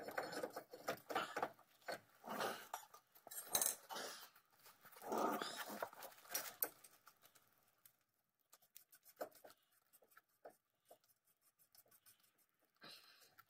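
Handling noise as a new brake rotor is lifted and slid over the hub's wheel studs: irregular scraping, rubbing and light metal clinks, busiest in the first half, then only a few small ticks.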